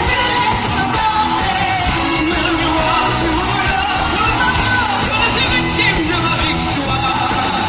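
Live singing backed by a symphony orchestra and a band with drums, heard from the audience in the concert hall.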